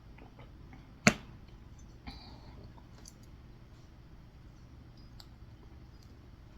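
A sharp clink of tableware about a second in, then a softer knock with a short scrape a second later and a few faint small clicks, as cake is eaten at a table.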